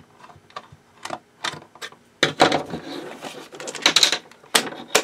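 A flathead screwdriver clicking and scraping in a triangle-head screw in a plastic hand-mixer base, with small clicks spaced through the first couple of seconds. From about two seconds in, louder clattering and rubbing of the plastic housing being handled and turned over, with a few sharp clicks near the end.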